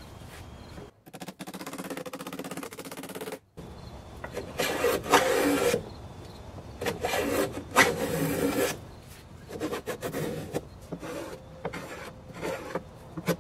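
Wooden chair edges being sanded by hand, sandpaper rasping on the wood in repeated strokes: a few long strokes, then shorter, quicker ones near the end.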